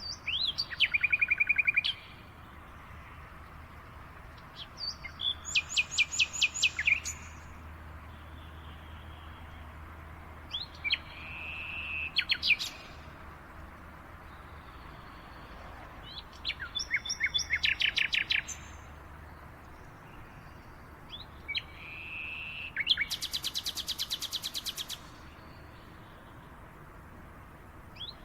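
A songbird singing: short phrases, each a quick run of rapidly repeated notes lasting about two seconds, given about every five seconds with pauses between.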